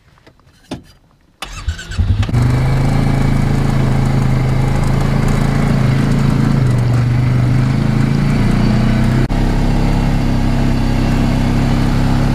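Polaris ACE 570's single-cylinder engine cranking and catching about a second and a half in, then running steadily at a fast idle with small rises in revs. A single click comes just before it cranks.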